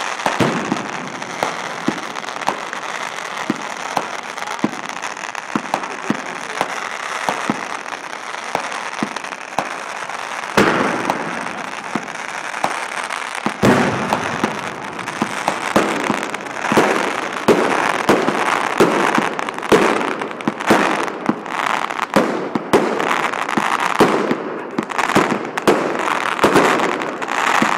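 Fireworks display: aerial bursts with a steady crackle and many sharp pops. About ten seconds in it grows louder, into a dense, irregular run of bangs and crackling.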